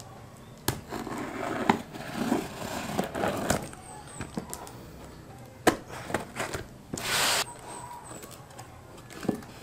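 Box contents being unpacked by hand: scattered knocks and clicks with scraping and rustling of packaging, and a short rasping burst about seven seconds in.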